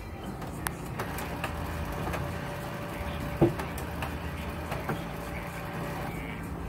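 HP Color LaserJet CP5225 colour laser printer running as it prints a configuration report: a steady mechanical hum with a series of clicks, the loudest a sharp click about three and a half seconds in.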